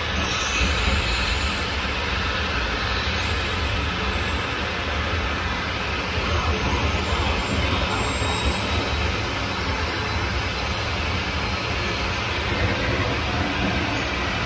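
Steady heavy engine noise during an aircraft pushback: a deep rumble under a wide hiss, unchanging throughout.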